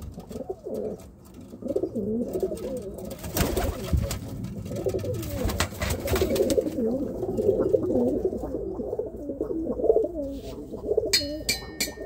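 Domestic pigeons cooing, several low wavering coos overlapping almost continuously, with a few short thumps.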